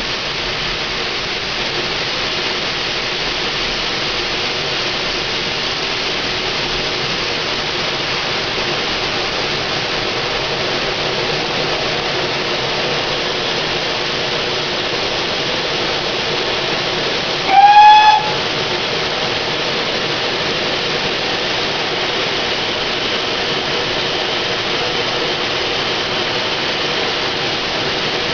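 Steam tank locomotive, a GWR pannier tank, with a steady hiss of steam. About two-thirds of the way in it gives one short whistle blast, under a second long and the loudest sound.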